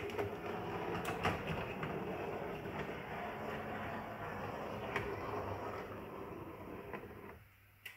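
Model steam tram running along the track, its small electric motor and gearing whirring steadily, with a few clicks as the wheels cross rail joints and points; the whirr dies away near the end.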